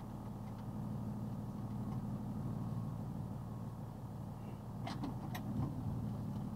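Box truck's engine running at low speed, a steady low hum heard inside the cab, with two or three sharp clicks about five seconds in.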